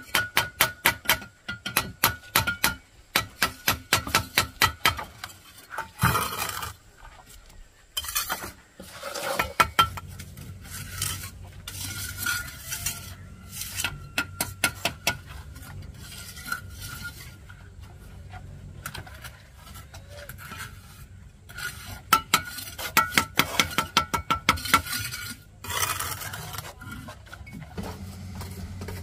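Mason's trowel scraping and tapping on mortar and brick in quick runs of strokes, with a ringing metallic note. The strokes come thickest at the start and again near the end, and a low steady hum runs under the second half.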